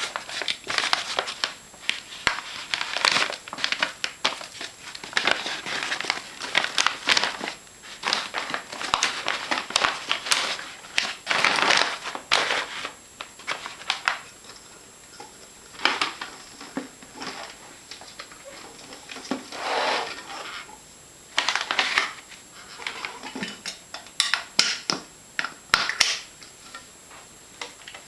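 Paper vacuum dustbag for a Hoover Constellation being handled, crinkling and rustling in irregular bursts with short lulls between.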